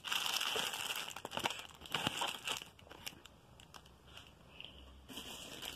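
Clear plastic packaging crinkling and rustling as bagged items are handled and moved. It is loudest for the first two and a half seconds, quieter after that, with another short burst near the end.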